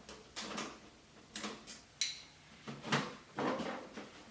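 Sheet-metal computer case being handled and opened: a series of clicks, knocks and short scrapes, the loudest about three seconds in.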